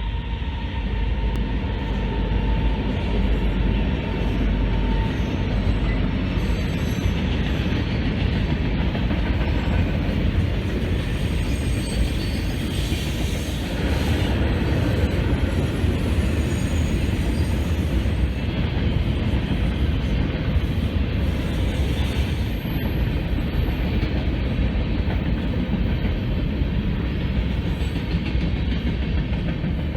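Train rolling past on the rails: a steady rumble with wheel clatter on the track joints.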